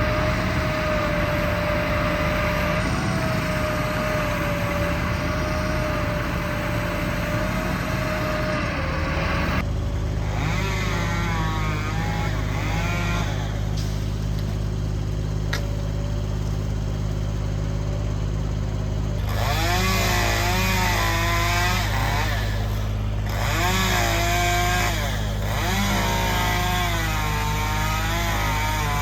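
A chainsaw running, its engine pitch rising and falling in several revving stretches. Under it, a low steady engine drone comes in about ten seconds in.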